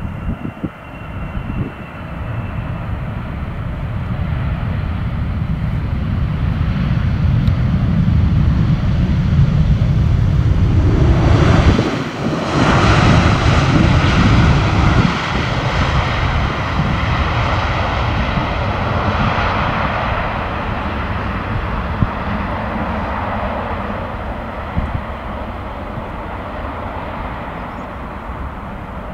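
Boeing 777-300ER's two GE90 jet engines during the landing roll after touchdown: a steady roar that builds to its loudest about twelve seconds in as the airliner passes, then slowly fades as it rolls away down the runway.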